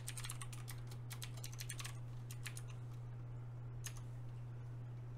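Computer keyboard typing: a quick run of keystrokes through the first two seconds, a few more after that, then a single keystroke near four seconds. A steady low hum runs underneath.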